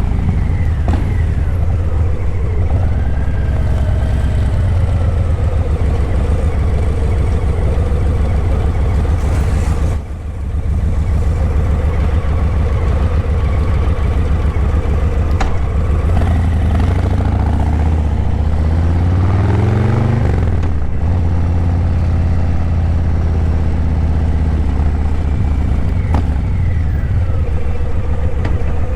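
Harley-Davidson Breakout 117's Milwaukee-Eight 117 V-twin running through Vance & Hines Eliminator 300 slip-on mufflers while riding in traffic. The sound dips briefly about a third of the way in, and about two-thirds in the engine revs up with rising pitch, then drops sharply as it shifts up.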